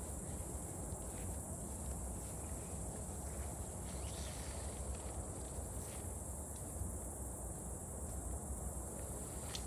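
Insects chirring steadily in summer grass, a continuous high-pitched hiss-like drone, over a low steady rumble, with a few faint light clicks.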